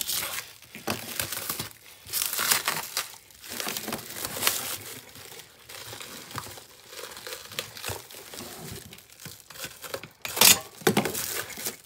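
Plastic stretch wrap being torn and crinkled off a bundle of steel tubing, in irregular rustling bursts. A sharp knock near the end is the loudest sound.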